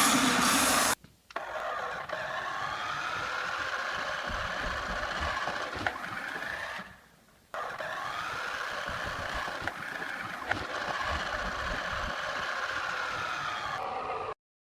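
Small electric motor and gears of a toy RC car whining as it drives, the pitch rising and falling as it speeds up and slows, with a brief break about halfway. A louder scraping noise fills the first second.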